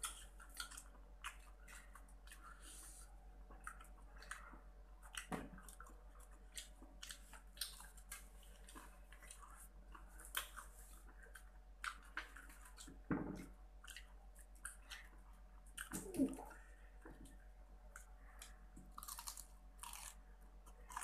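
Close-up chewing of KFC fried chicken: irregular wet chewing with small crunches and mouth clicks, and three louder brief low sounds in between.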